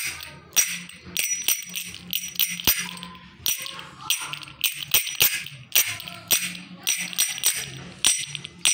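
Shukuku folk toy worked by hand: its two metal discs, on a sprung wire, clack together again and again in quick, irregular strikes, a few a second. Each strike is a bright metallic clink with a short ring.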